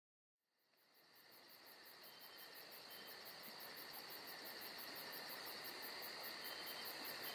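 Insect chorus fading in from silence and growing louder: rapid, evenly pulsed high chirping, about six a second, over a steady high buzz.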